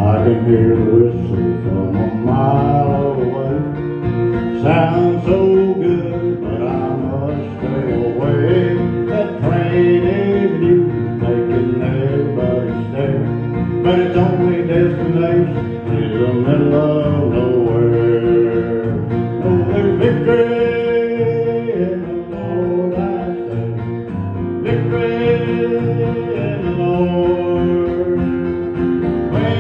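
Instrumental break of a country song played live: acoustic guitar strummed with an electric bass guitar underneath.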